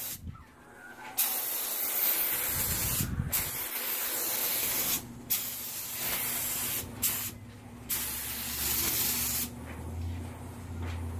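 Paint spray gun spraying clear coat in four hissing passes of about two seconds each, with short pauses between them, laying down a second coat of clear.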